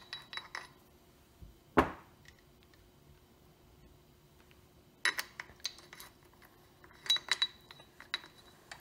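Metal fork parts and a long steel tool rod clinking and tapping together while an aluminum cup is seated inside a motorcycle fork slider. Short clusters of clinks come near the start, about five seconds in and about seven seconds in, with one duller knock just under two seconds in that is the loudest.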